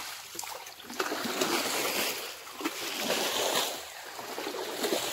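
Shallow muddy pond water splashing in uneven bursts as water is tipped out of a bucket and hands churn through it.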